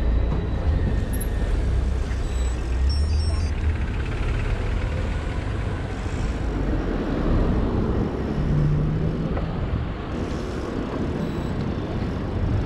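Street traffic noise heard while cycling alongside a queue of cars, with wind rumbling on the microphone. A short low steady hum shows up about two-thirds of the way through.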